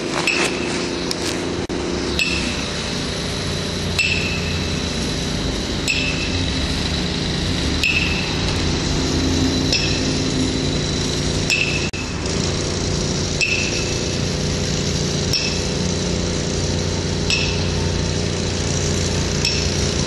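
A hammer striking metal at a steady pace, about one blow every two seconds, each blow ringing briefly. A steady mechanical hum runs underneath.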